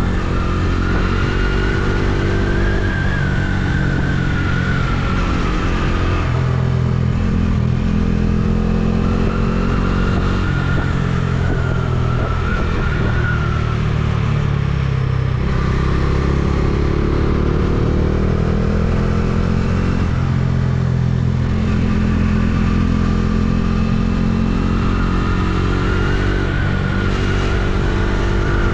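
Motorcycle engine running under way, its pitch climbing under throttle and dropping back several times, as at gear changes and on and off the throttle through bends. Steady wind and road rush lies under it.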